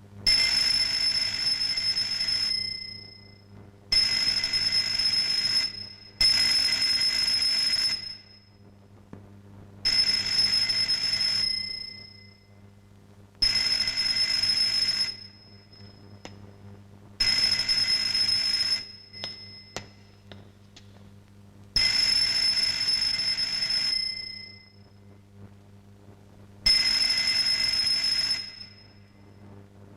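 A bell ringing in eight long rings of about two seconds each, one roughly every four seconds, each starting sharply and fading out.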